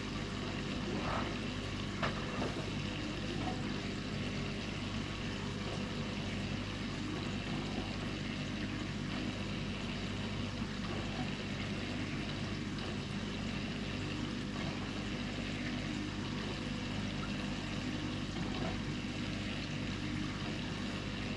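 Aquarium filter running: a steady hum with water trickling into the tank.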